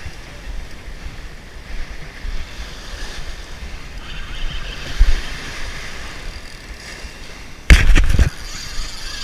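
Small surf waves washing onto a sandy beach, with wind rumbling on the microphone. About eight seconds in, a loud brushing noise close to the microphone lasts about half a second.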